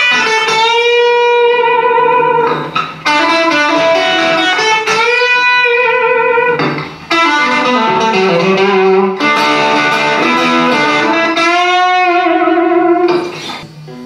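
Eko S300V electric guitar played through an Orange Rocker 15 valve combo amp: a lead line of long held notes that bend and waver in pitch, with short breaks about 3 and 7 seconds in, fading out shortly before the end.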